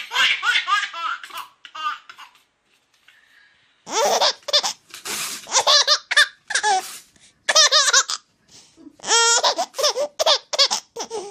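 Two babies laughing one after the other in quick repeated bursts of laughter, with a pause of about two seconds between them.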